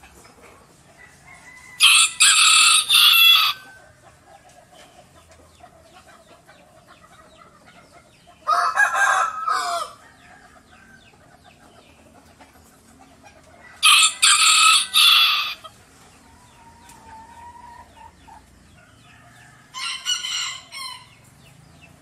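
Rooster crowing four times, each crow about a second and a half long, spaced about six seconds apart.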